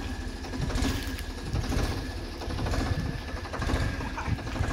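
Diesel tractor engine idling steadily, a rapid even low throb.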